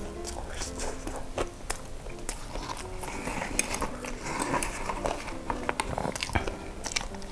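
Close-miked chewing of crispy fried chicken coated in gochujang sauce, with many short crackles and wet clicks as the crust is bitten and torn apart by hand, over quiet background music.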